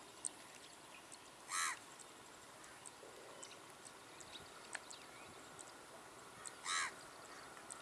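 A bird giving two short calls about five seconds apart, over a faint background haze.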